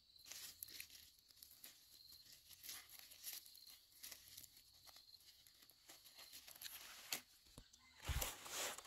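Hands snapping and tearing off the stems of leafy vegetables, with leaves rustling: a string of small, irregular snaps. A louder rustle with a soft thump a little after eight seconds.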